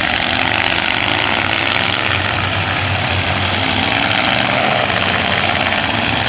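Demolition derby car engines running in a loud, steady din, idling rather than revving hard.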